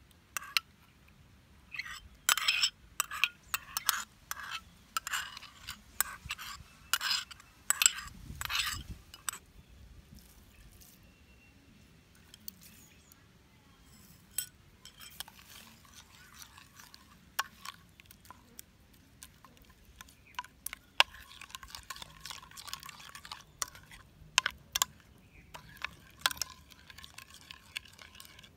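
Kitchen food-prep sounds: a dense run of short clinks and scrapes of utensils against dishes for several seconds. After a quiet stretch come softer stirring and liquid sounds with scattered clinks.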